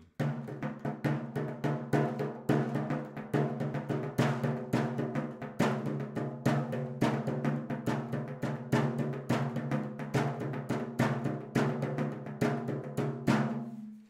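Fingers tapping on the goat-skin head of an 18-inch ocean drum: a quick, uneven run of taps, about four a second and varying in strength, with the drum head ringing on beneath them, ending abruptly just before the end.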